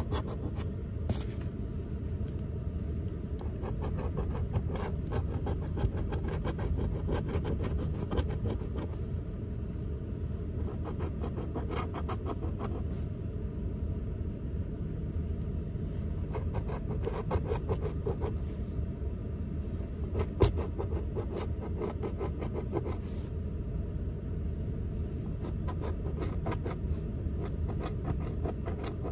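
A coin scraping the coating off a scratch-off lottery ticket in repeated spells of quick strokes, over a steady low rumble.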